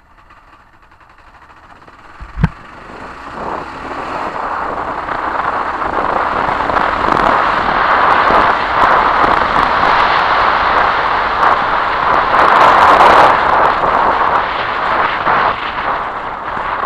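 Kawasaki KLR650 ridden along a gravel track, heard through the rider's helmet camera: a rush of wind and tyre noise with small clicks of stones, growing louder as the bike gathers speed. A sharp knock sounds about two and a half seconds in.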